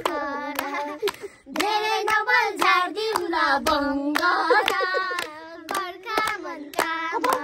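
Young girls singing a song together, with hand claps keeping the beat.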